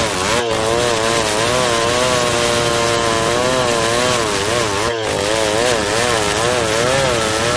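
New West 707 two-stroke chainsaw running at full throttle, ripping wood lengthwise; the engine note wavers slightly up and down as the load in the cut changes.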